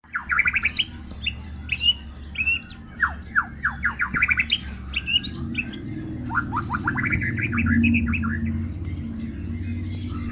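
White-rumped shama (murai batu) singing a fast, varied song of quick falling whistles and chirps, busiest over the first seven seconds and thinning near the end. A steady low hum runs underneath from about halfway.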